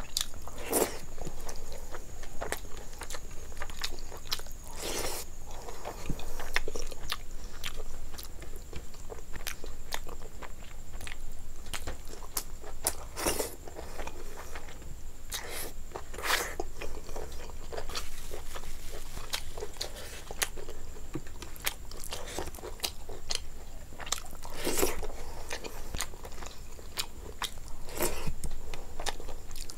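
Close mouth sounds of a person eating rice and curry by hand: chewing and wet lip smacks, with a few louder smacks spread through.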